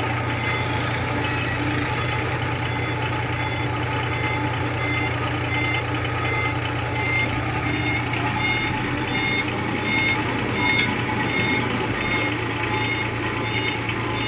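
Engine running steadily as a road roller climbs a ramp onto a tractor-trailer, with a backup alarm beeping at an even pace throughout.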